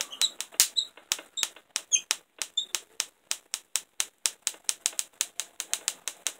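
Van de Graaff generator sparks snapping between the charged paint can lid and a handheld metal discharge sphere, a rapid train of sharp cracks at about five a second.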